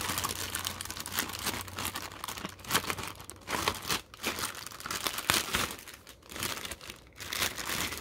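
Clear plastic packaging bags crinkling and rustling in irregular bursts as plastic pressure-washer parts are handled and pulled out of them.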